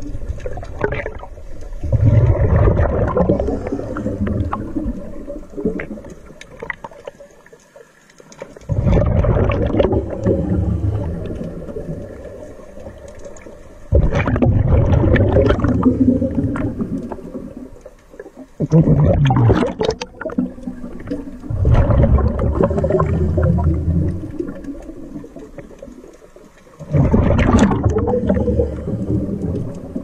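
Scuba diver's exhaled bubbles rushing from the regulator, heard underwater: a bubbling rumble a few seconds long with each breath out, about six times, roughly every five seconds, with quieter gaps between.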